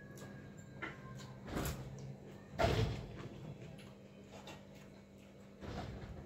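Eating sounds as watery rice is eaten by hand from a steel plate: a few short, noisy mouth and hand noises, the loudest about two and a half seconds in, over a steady low hum.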